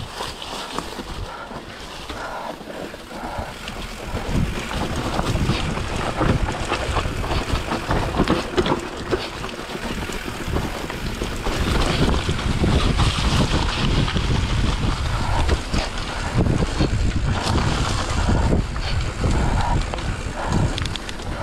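Wind buffeting the microphone of a handlebar-mounted action camera on a hardtail mountain bike riding downhill, with tyres crunching over dirt and dry leaves and the bike rattling and knocking over bumps. It gets louder about four seconds in and again at about twelve seconds as the bike speeds up.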